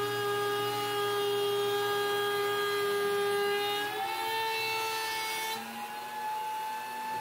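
Table-mounted wood router running at full speed with a steady high whine while a 3/4-inch MDF panel is fed past the bit. Its pitch steps up slightly about four seconds in, and the hissy cutting noise drops away shortly after.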